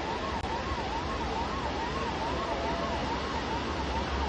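Emergency vehicle siren wailing in a quick up-and-down warble, about two and a half rises and falls a second, over a steady rushing noise and low rumble.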